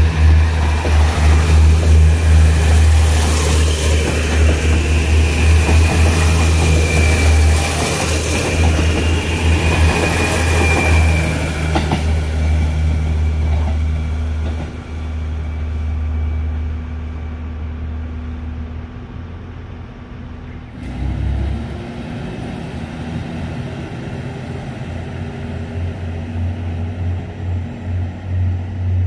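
HC85 diesel-hybrid train running past with its engines humming low and a steady high whine over them, fading away about 15 seconds in. After a sudden change about 21 seconds in, a diesel railcar's engine idles with a low hum.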